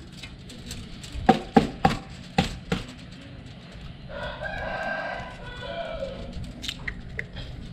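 An egg knocked against the rim of a frying pan: five sharp taps, then a few fainter clicks near the end as the shell is opened. About four seconds in, a rooster crows for about two seconds, quieter than the taps.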